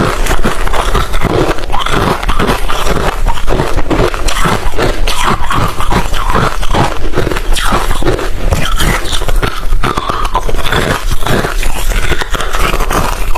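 Hard refrozen crushed ice being bitten and chewed: a loud, continuous run of sharp crunches, about three or four a second.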